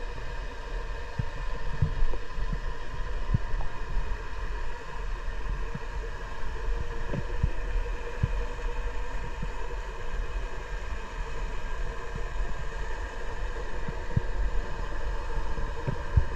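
A steady mechanical hum made of several constant tones over a low rumble, with irregular short low thumps scattered through it.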